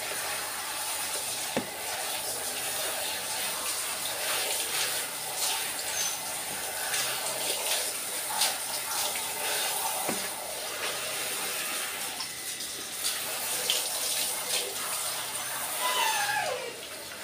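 Handheld shower head spraying water steadily over a wet Shetland sheepdog's long coat, rinsing the shampoo out.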